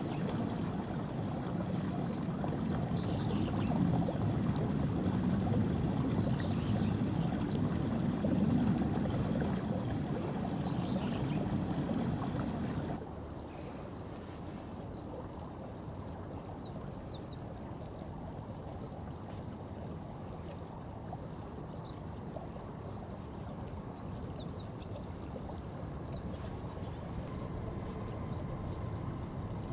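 Steady rush of flowing river water, louder for the first half and dropping sharply about halfway through. The quieter part carries brief high bird chirps.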